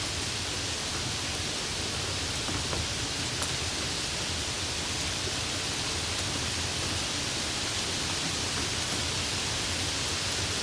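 Steady, even hiss with a few faint ticks scattered through it.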